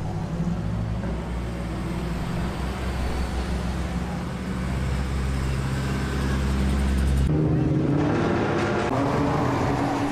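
Car engine running with a steady low drone; about seven seconds in the sound cuts suddenly to a different engine note.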